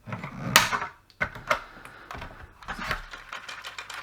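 Plastic being chopped off a Starlink router's housing: a few sharp cracks and snaps, the loudest about half a second in, with handling noise between.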